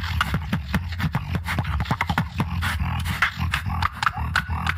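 Beatboxing into a microphone: a continuous deep bass drone under fast, sharp percussive hits, several a second.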